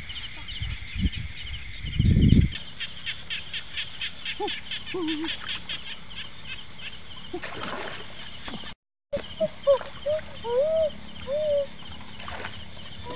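Night chorus of frogs and insects at a flooded paddy: a steady, high pulsing chorus throughout. From about two-thirds in, short calls rise and fall in pitch. A brief low thump of handling comes about two seconds in.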